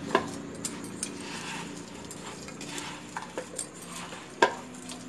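A large spoon stirring puffed rice mixed with chopped vegetables in a bowl: a dry rustling of the puffed rice with scattered clicks of the spoon against the bowl, the sharpest about four and a half seconds in.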